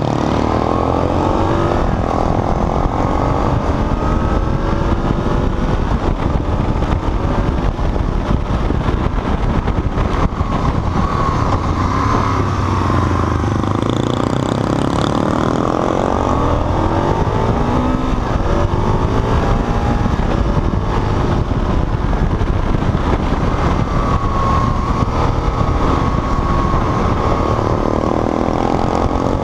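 Aprilia Tuono's engine pulling hard through a run of bends, its pitch rising and falling again and again as the rider accelerates, backs off and changes gear, over loud wind rush.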